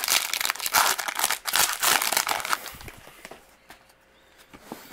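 Foil wrapper of a Bowman baseball card pack crinkling as it is opened and emptied, for about three seconds, then only faint handling of the cards.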